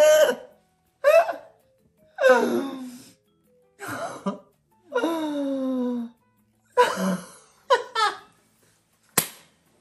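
A voice making about seven short, drawn-out vocal sounds, mostly falling in pitch, cut apart by moments of silence, with a sharp click near the end.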